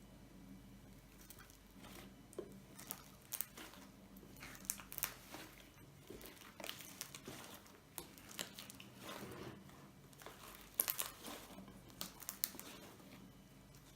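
White fluffy slime being mixed, giving irregular sticky crackles and pops, with a louder cluster about eleven seconds in.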